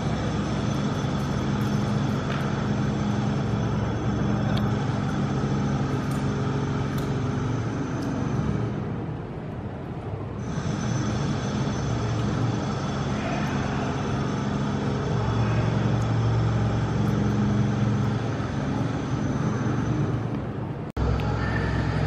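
Steady low mechanical hum and rumble, even in level throughout, with a brief dropout near the end.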